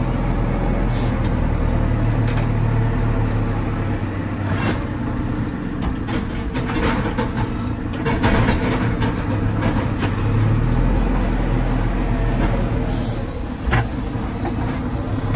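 JCB 4CX backhoe loader's diesel engine running steadily under load, with scattered clanks and rattles from the front bucket working material, thickest in the middle of the stretch.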